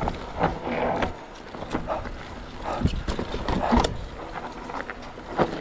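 Mountain bike rolling fast down a loamy dirt singletrack: tyre noise on the dirt, with repeated knocks and rattles from the bike over bumps.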